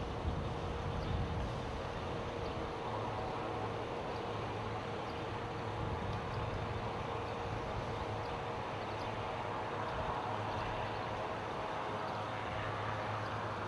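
Utility bucket truck's engine running steadily at idle, a low hum that sets in a few seconds in, with light wind buffeting the microphone at the start.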